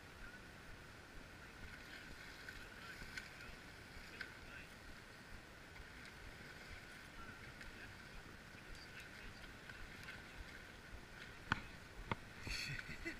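Faint, steady rush of river water over a riffle, with two sharp clicks near the end.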